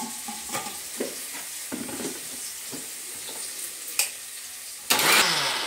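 Steel vessels and a mixer-grinder jar clinking and knocking as they are handled, over a faint sizzle of frying. About five seconds in comes a short loud burst that dies away with a falling tone: the mixer grinder run briefly to grind the tomato puree.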